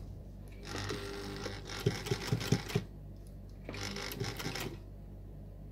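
Sewing machine stitching in two short runs, the first about two seconds long with a few clicks in it, the second about a second long. This is the start of a seam: a few forward stitches and then a reverse to lock it.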